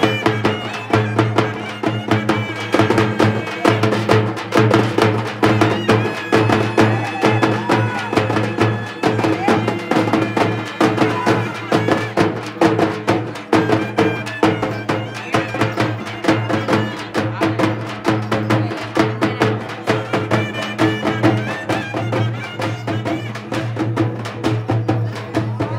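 Traditional folk music: fast, steady drumming with a wind-instrument melody over a continuous low drone.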